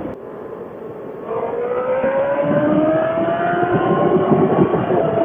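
Inline-four sport bike engine under way: the throttle eases for about a second, then the engine pulls hard and its pitch climbs steadily as the bike accelerates through a gear, over wind rumble.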